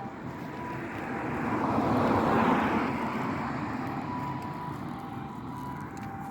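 A car driving past, its road noise swelling to a peak about two seconds in and then fading. Faint alternating two-tone 'pi-po' of an ambulance siren sounds underneath.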